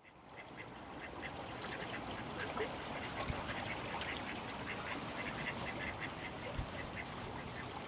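Ducks quacking and chattering in many short calls over the steady rush of water flowing under a bridge, fading in over the first second.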